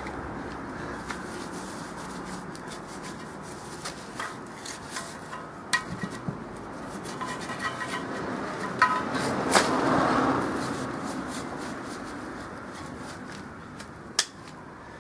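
Scattered light knocks and scrapes from handling a large off-road tyre on a steel wheel, over a background of traffic noise that fades away early on.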